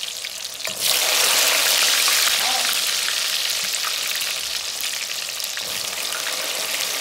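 Potato pieces deep-frying in hot oil: a steady sizzle full of small crackles, which grows suddenly louder about a second in.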